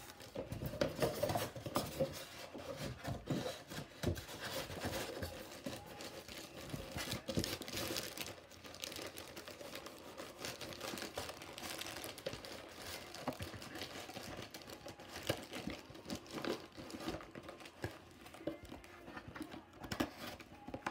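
Packaging crinkling and rustling as it is handled and pulled apart, with many small clicks and taps throughout.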